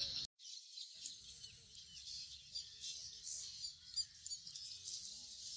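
Faint, scattered bird chirps over a steady high-pitched hiss of outdoor background, with a brief dropout about a quarter second in.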